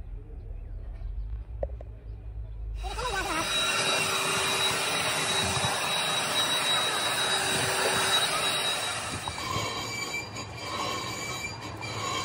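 A low steady hum, then about three seconds in a metalworking machine starts cutting or grinding metal with a sudden loud screech. The screech carries several steady high whining tones and eases a little near the end.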